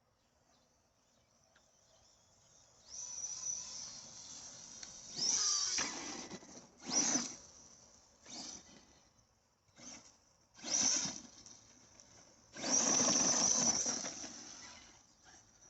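Arrma Big Rock 6S RC monster truck's brushless electric motor, run on a 4S battery, whining in repeated throttle bursts, about seven in all, one rising in pitch as it spools up; the longest and loudest burst comes near the end.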